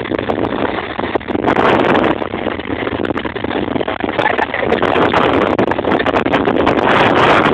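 Bajaj Pulsar 220 motorcycle engine running under heavy wind buffeting on the microphone.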